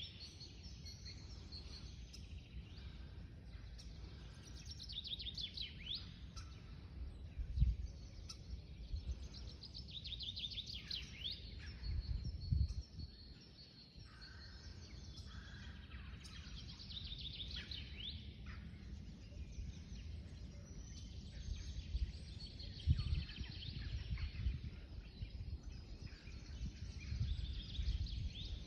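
Small birds chirping and trilling on and off throughout, over a steady low rumble that swells now and then, loudest about a third of the way in and again near the end.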